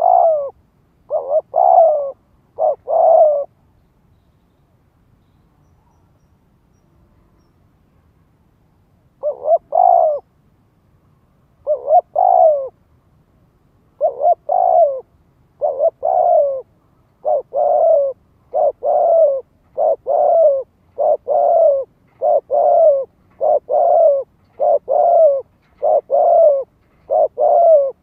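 Spotted dove cooing: a few short coos, then after a pause of about six seconds a steady run of rapid repeated coos less than a second apart, each a quick two-part note falling in pitch. This is a decoy male's rapid 'thúc' cooing, used to call in and provoke wild male doves.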